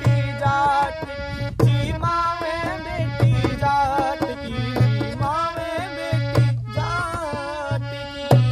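Instrumental interlude of a Rajasthani folk bhajan: a harmonium plays the melody over a dholak beating a steady rhythm, with a deep bass stroke about every second and a half and sharp slaps between.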